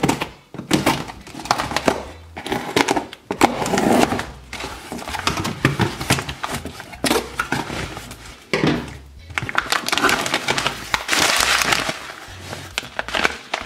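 Cardboard shipping box being opened and foil freeze-dried food pouches rustling and crinkling as they are handled, with irregular clicks and scrapes. The longest, loudest rustle comes about eleven seconds in.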